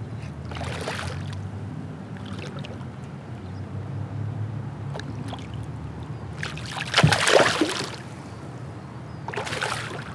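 Hooked smallmouth bass thrashing and splashing at the water's surface beside a kayak, in three bouts of splashing. The loudest bout comes about seven seconds in, with a sharp knock in it, as a hand reaches for the fish. A steady low hum runs underneath.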